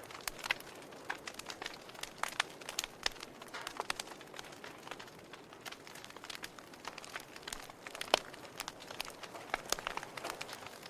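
Wood fire in a fireplace crackling: irregular sharp pops and snaps over a soft hiss, with one louder snap about eight seconds in.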